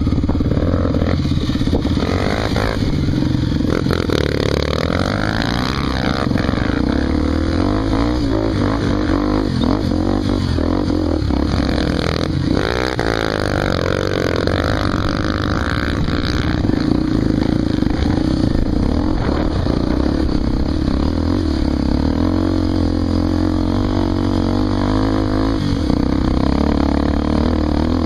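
Honda XR250 Tornado's single-cylinder four-stroke engine running under load, its revs rising and falling repeatedly.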